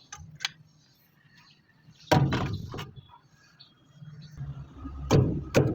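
Metal engine parts knocking together as they are handled and set in place: a few light clicks, one loud clank about two seconds in that rings briefly, then two more sharp knocks near the end.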